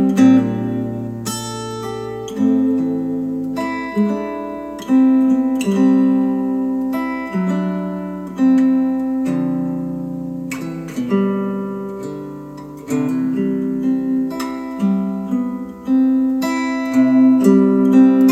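Acoustic guitar music: plucked notes and chords that ring out and fade, a new one struck every second or so, played back through Polk Audio Reserve R200 bookshelf speakers.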